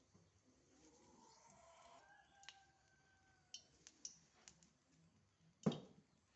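Scattered light clicks of kitchen utensils against near silence, with a louder single knock near the end.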